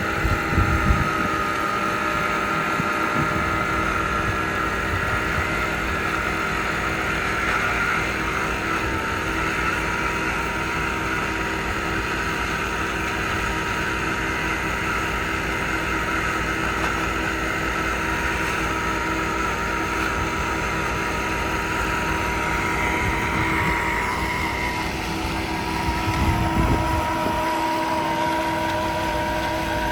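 An engine running steadily, its pitch shifting about 24 seconds in, with wind buffeting the microphone near the start and again near the end.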